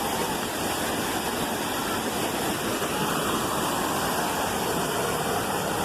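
Steady, even rush of water from a waterfall and the rocky stream below it.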